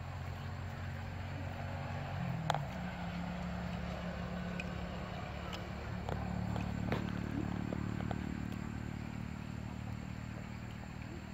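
A motor engine running steadily with a low hum, its pitch shifting about two seconds in and swelling a little around six to seven seconds. A few short sharp clicks sound over it, the loudest about two and a half seconds in.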